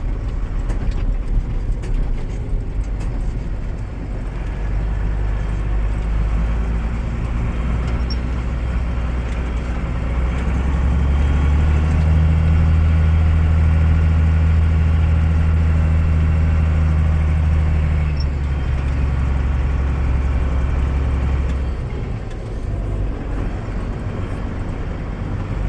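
Motor vehicle engine running while driving, a steady low drone that grows louder for several seconds in the middle before easing back.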